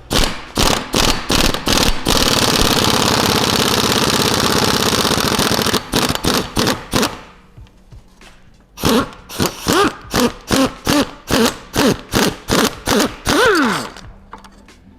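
Steel being struck: a few heavy blows, about four seconds of continuous rapid air-tool hammering, then a string of ringing hammer strikes about two or three a second, driving a seized bolt out of a Volvo XC90's rear suspension.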